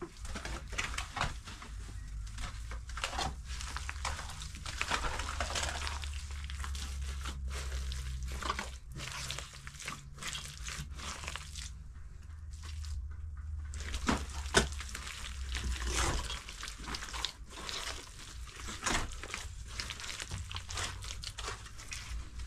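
Wet straw-and-mud plaster (kahgel) being worked by hand: irregular scraping, rustling and wet smearing sounds, over a steady low rumble.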